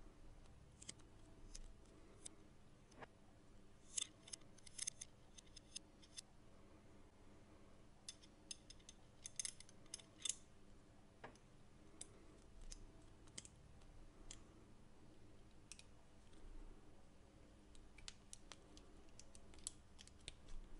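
Faint metallic clicks and clinks of bent wire loops and a bolt knocking together as fingers turn them. The clicks come in scattered clusters, thickest about four, nine to ten, and nineteen seconds in.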